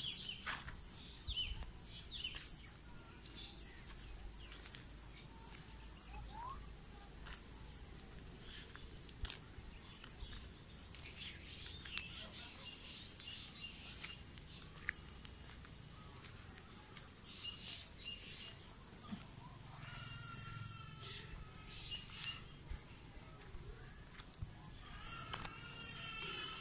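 Insects trilling in a steady high-pitched evening chorus, with occasional short bird chirps.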